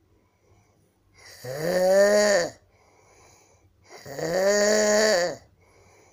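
A sleeping man snoring loudly: two long, pitched snores of about a second each, with a bleating, goat-like tone, and quiet breathing between them. The snorer himself suspects a breathing problem behind it.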